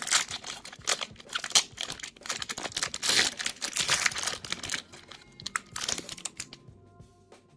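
Foil wrapper of a Pokémon trading card booster pack being torn open and crinkled as the cards are pulled out, a dense crackling that stops about six seconds in. Faint background music comes in near the end.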